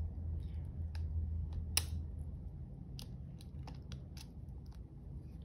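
Scattered light metallic clicks as a small part is worked into place by hand on the shaft of a Massey Ferguson 50A clutch pack, over a low steady hum.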